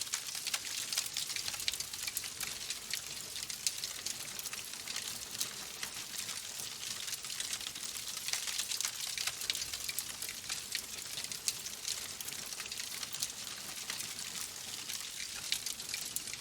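Wood fire crackling: logs burning with a dense stream of small sharp pops and snaps over a steady hiss.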